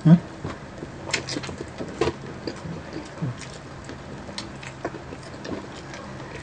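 Close-miked chewing and crunching of crispy breaded fried chicken wings: irregular crisp crackles and clicks, a few a second. A brief loud vocal sound right at the start.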